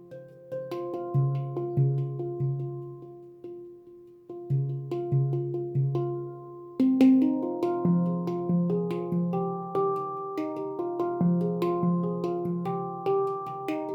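Handpan by Leaf Sound Sculpture, tuned to the F Voyager scale, played by hand: struck notes that ring and fade. A sparse repeating low phrase becomes busier about halfway through, with more higher notes laid over the low ones.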